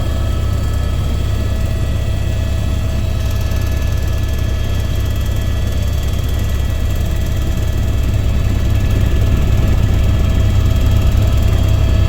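Helicopter in flight: a steady low rotor drone with a constant turbine whine over it, growing slightly louder near the end.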